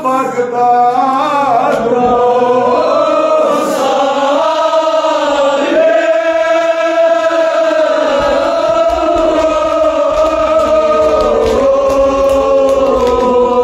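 Kashmiri marsiya, a Muharram lament, chanted by men's voices in a slow, drawn-out line of long held notes that climbs in the first seconds and then holds steady.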